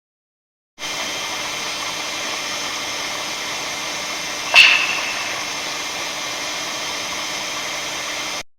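One sharp clap about halfway through, over a steady hiss of background noise: the odd clapping sound that some observers hear during the northern lights, which may come from the energetic particles that cause the aurora.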